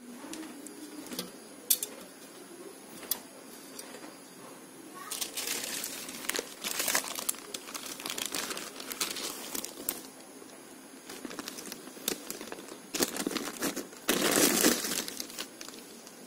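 Tracing paper crinkling as it is handled and spread over a glass slab, in two long stretches from about five seconds in and again near the end, the second loudest. There are a couple of sharp clicks before them.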